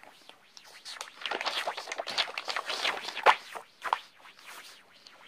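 Paper rustling and scraping as a sheet is moved and a page is changed, with a sharp tap about three seconds in and a smaller one just after.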